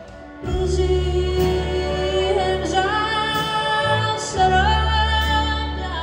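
Live folk song: a woman singing over acoustic guitar and violin. The music comes back in about half a second in after a brief hush.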